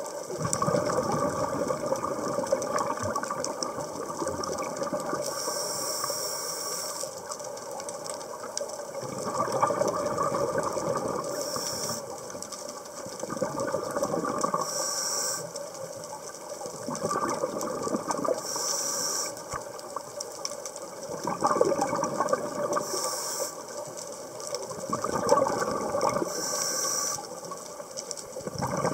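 Scuba diver breathing through a regulator underwater in a slow, regular cycle: a short hiss of inhaled air every three to four seconds, then a longer rush of exhaled bubbles. About six breaths.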